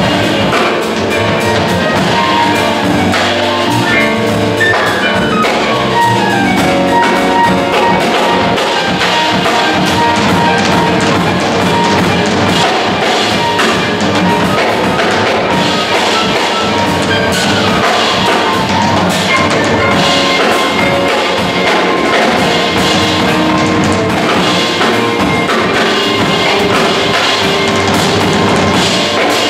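Jazz quartet playing live on piano, guitar, upright bass and drum kit, with the drummer keeping time on cymbals and drums. Fast descending melodic runs come twice, about four seconds in and again about sixteen seconds in.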